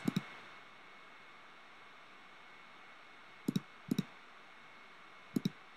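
A computer mouse clicking a few times at uneven intervals over a faint steady hiss: once right at the start, twice about half a second apart a little past three seconds in, and once more near the end.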